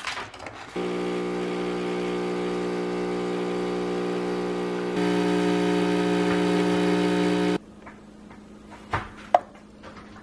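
Automatic bean-to-cup espresso machine humming steadily while it dispenses coffee into a mug. The hum gets louder about five seconds in and stops suddenly a couple of seconds later. Near the end come two short clinks.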